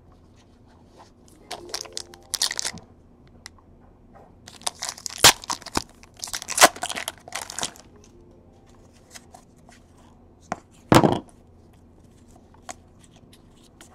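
A foil trading-card pack wrapper being torn open and crinkled in several short rustling bursts, with one louder crackle near the end as the cards are handled.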